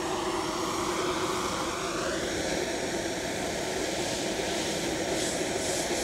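Steady rushing hiss of a handheld propane blowtorch flame heating a steam coil, together with superheated steam jetting from a copper tube.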